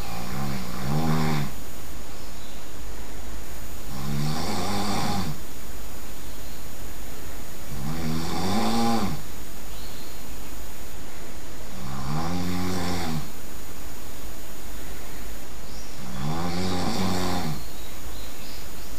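A sleeping person snoring loudly. There are five long, pitched snores about four seconds apart, each rising and then falling in pitch.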